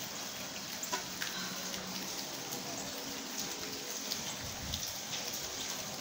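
Steady rain falling, with scattered sharper drop ticks.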